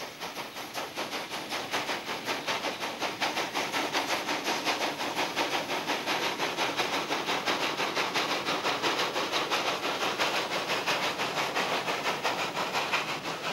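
Narrow-gauge steam locomotive working a loaded sugarcane train, its exhaust beating in a steady, rapid rhythm over a continuous hiss of steam.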